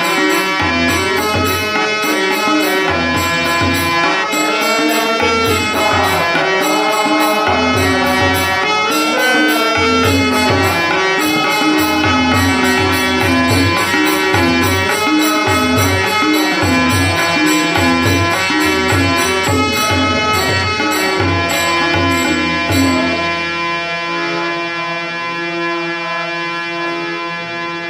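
Indian harmonium playing a bhajan melody over sustained reed tones, accompanied by a rhythmic hand drum. The drum stops about 23 seconds in, leaving the harmonium holding steady notes.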